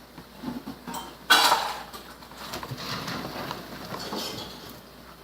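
A spoon stirring a sticky slime mixture of glue, shaving cream and paint in a bowl, scraping and knocking against the bowl, with one louder clatter about a second in.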